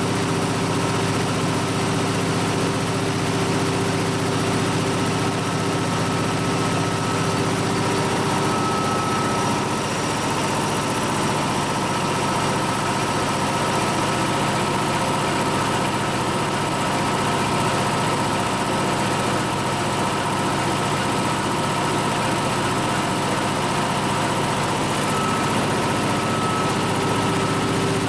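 Ingersoll Rand H15T4 high-pressure breathing-air compressor (20 hp) running steadily under load, a steady mechanical drone with a whine on top whose pitch mix shifts slightly about a third of the way in.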